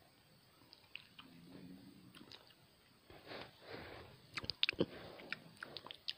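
Faint mouth sounds right at the microphone: a short low hum about a second in, breathing, then a quick run of wet lip smacks and small mouth clicks in the second half, as when tasting a soda.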